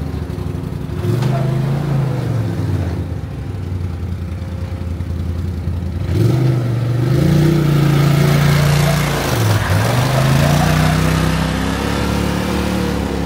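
Polaris RZR side-by-side engine running as the vehicle drives slowly on pavement. It revs up about a second in and eases off, then revs up again at about six seconds and holds, with a short dip near ten seconds.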